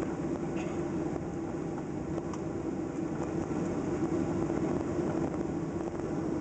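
Inside the cabin of a Boeing 737-700 airliner taxiing: steady noise from the wing-mounted jet engines at taxi power, with a constant low hum.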